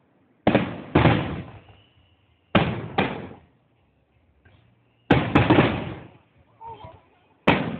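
Fireworks exploding: seven loud booms, mostly in pairs about half a second apart, each trailing off in a rolling echo.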